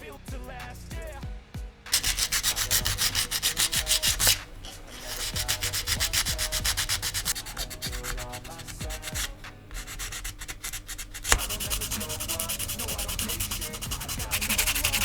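Rapid back-and-forth sanding strokes in three runs: the first begins about two seconds in, with short pauses near four and nine seconds and one sharp knock near eleven seconds.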